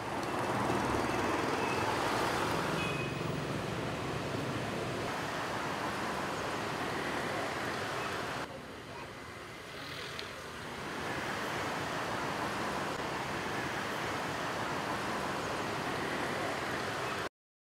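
Street ambience with a steady hiss of road traffic, changing in level a few times and cutting off suddenly near the end.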